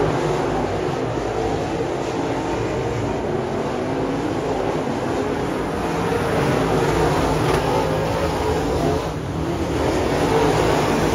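A pack of dirt late model race cars' V8 engines racing around a dirt oval, a steady roar with engine pitch rising and falling as the cars go through the turns.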